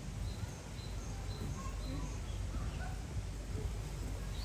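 Outdoor background ambience: a small bird chirping a run of short high notes over a steady low rumble, with faint distant voices.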